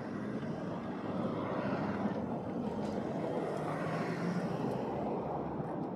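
Road traffic passing: a steady vehicle engine and tyre sound, growing slightly louder about a second in.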